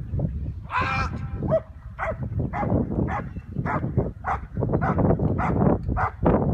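German shepherd growling in short rough pulses, about two a second, while holding a bite on a helper's padded sleeve.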